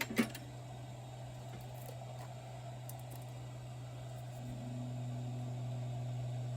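Steady low electrical hum from running workbench equipment, with one click just after the start; a second, higher hum joins about four and a half seconds in and the sound grows slightly louder.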